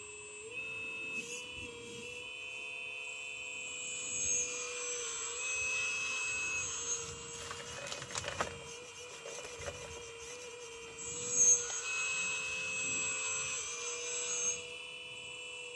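Heavy earthmoving machine running with a steady whine that steps up and down in pitch, growing louder for a few seconds twice, with a few sharp knocks in the middle.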